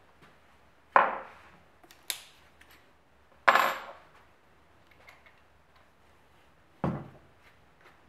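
Tools clacking against a wooden workbench as they are handled: a knock about a second in, a sharp click, another loud knock, and near the end a lower, heavier thud as a cordless drill is set down on the bench.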